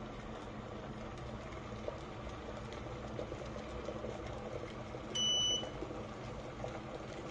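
Chefman 1.8 L glass electric kettle boiling, with a steady bubbling rumble of water. About five seconds in, a single short high beep sounds for about half a second.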